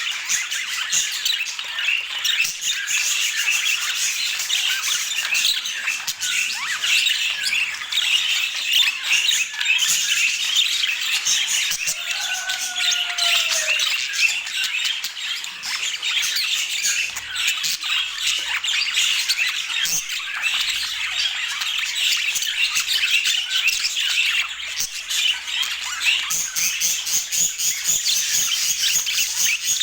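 Budgerigars chattering and squawking continuously in a dense, rapid warble, with one lower, falling call about halfway through.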